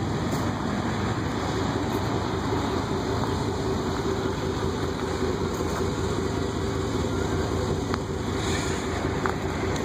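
A 1997 Chevy Silverado pickup's engine idling steadily, with a faint even hum over the running noise.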